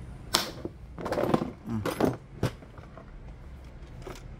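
Plastic toolbox being handled, making a few irregular clicks and knocks, the sharpest about two and a half seconds in.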